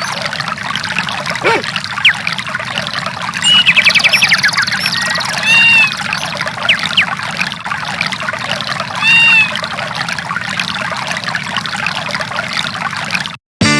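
Samsung SGH-E720 nature-sound ringtone: steady running water with bird chirps and a quick trill over it. It cuts off suddenly near the end.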